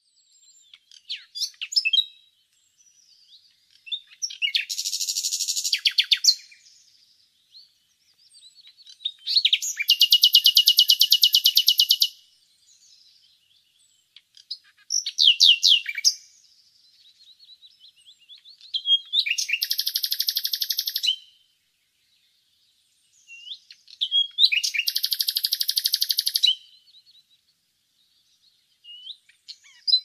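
Common nightingale singing: a series of short phrases of fast repeated notes and trills, each one to three seconds long, with pauses of a second or two between them.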